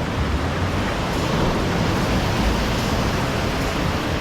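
Big ocean waves breaking on a rock reef: a steady roar of surf with a deep rumble underneath.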